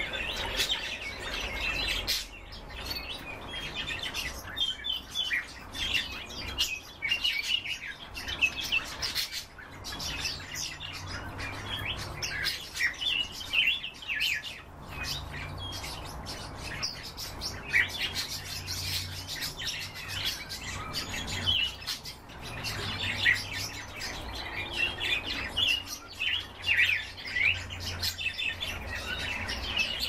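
Caged songbirds chirping and calling over and over, with short, quick notes and trills from several birds at once.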